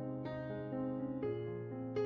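Soft background music on a keyboard or piano: slow, held notes, a new one about every half second.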